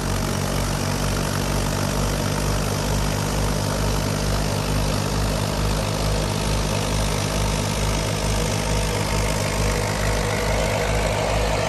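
Fiat 480 tractor's diesel engine running steadily while driving a wheat thresher by belt, with a low throb about twice a second, under the thresher's steady rushing noise.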